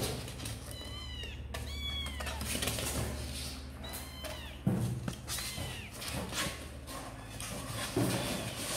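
Young kittens mewing: several short, high-pitched mews that rise and fall, with a couple of dull thumps, the loudest about halfway through.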